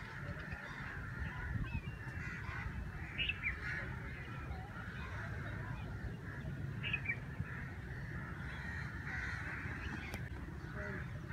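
Birds calling at dawn: a steady wash of chatter with a few short, louder calls about three and seven seconds in, over a low background rumble.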